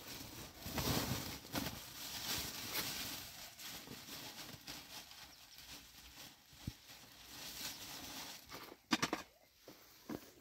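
Plastic sheeting and a woven sack rustling and crinkling as they are handled, louder at first and then softer, with a few sharp clicks near the end.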